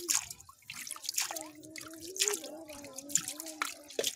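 A hand splashing and scooping in muddy water in a small hole, feeling for fish: a run of irregular wet splashes and drips.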